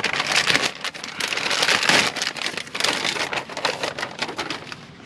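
Plastic bag crinkling as a new air filter element is pulled out of it and handled, in quick irregular runs of rustling that die down near the end.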